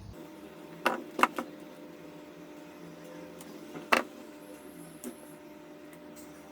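A few sharp clicks and snaps of a cutter working on a laptop charger's cable to strip its rubber insulation, the loudest about four seconds in, over a steady faint hum.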